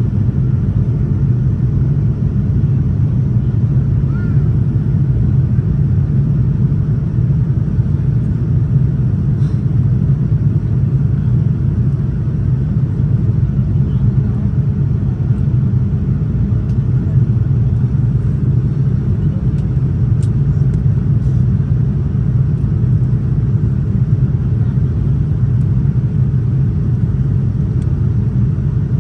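Steady low rumble of airliner cabin noise inside a Boeing 787-9 in flight: airflow and engine noise heard from a passenger seat, with a few faint clicks.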